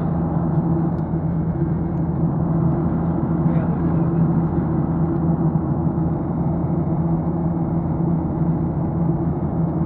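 Steady drone of a jet airliner heard inside the cabin in flight: engine and airflow noise with a strong low hum, unchanging throughout.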